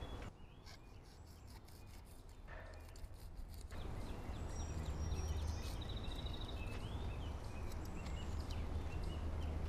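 Outdoor ambience of a low, steady wind rumble on the microphone, with small birds chirping now and then in the second half.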